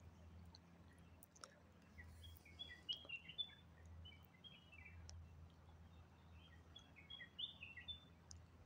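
Faint bird chirping over near silence: quick short high chirps in one bout from about two seconds in and another near the end.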